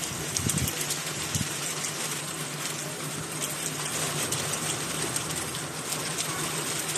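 Heavy rain falling steadily: a dense, even hiss with scattered drop ticks and a faint steady low hum underneath.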